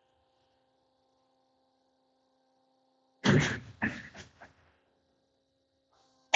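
Cherry's DC-74-R dual clamp pile turner in operation: a faint steady electrical hum, then about three seconds in a sudden loud clank and rattle with a second hit just after, dying away over a second or so.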